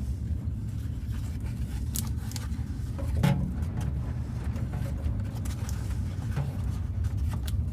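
Eggs being handled and taken out of their carton: a few light knocks and clicks, the loudest a little over three seconds in, over a steady low hum.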